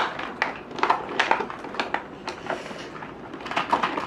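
Toy packaging being handled during an unboxing: an irregular run of clicks, taps and crinkles from plastic and cardboard.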